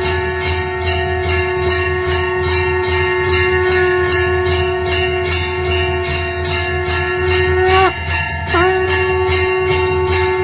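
Temple hand bell rung rapidly and steadily, about three to four strikes a second, over a held ringing tone with several overtones and a low hum beneath. About eight seconds in, the held tone sags in pitch, breaks briefly and returns.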